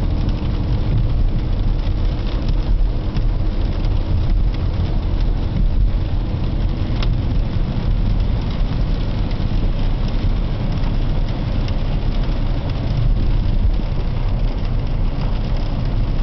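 Steady cabin noise of a car being driven on wet roads: low engine and tyre rumble with the hiss of rain and wet tyres.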